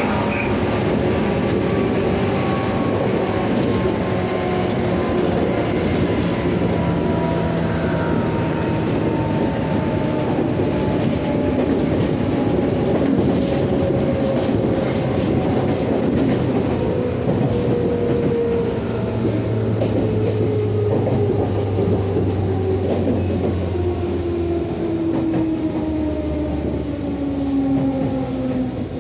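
JR East 211 series electric train (set N326) running, heard from on board: its motor whine falls steadily in pitch as the train slows, with a low hum and a few clacks of the wheels over rail joints.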